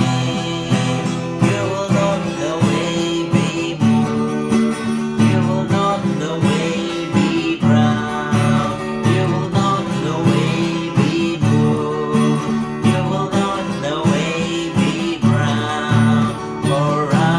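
Music led by strummed acoustic guitar, keeping a steady strumming rhythm.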